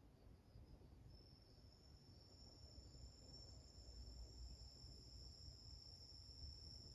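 Near silence, with a faint, steady, high-pitched insect trill that starts about a second in.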